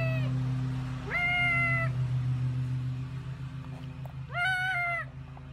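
Yellow spiky rubber squeaky ball squeezed by hand, giving three drawn-out squeaks, each rising quickly to a steady pitch, over a steady low hum.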